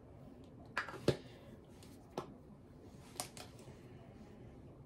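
A few faint clicks and taps of small plastic skincare containers being handled and opened, the loudest about a second in.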